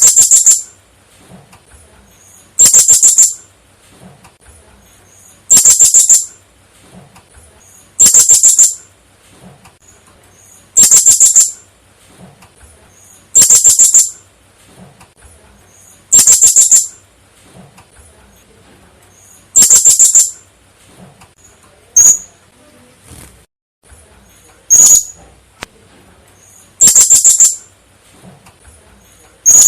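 Blue-crowned hanging parrot (serindit) calling: loud bursts of rapid, very high-pitched chirps repeated about every three seconds, with a couple of short single notes in between. It is the kind of call used to lure serindit.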